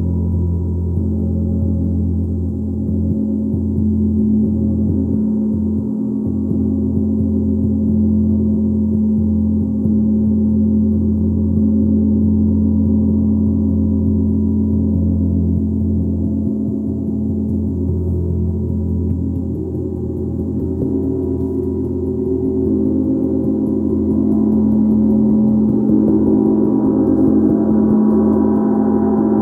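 Gong sounding in a continuous, sustained wash of deep, overlapping ringing tones with no separate strikes standing out, swelling a little near the end.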